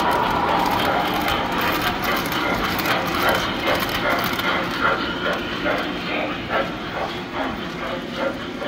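Tinplate standard-gauge model train running past: the locomotive's motor hum with the wheels clicking over the track joints in an even rhythm of about three clicks a second, getting quieter toward the end.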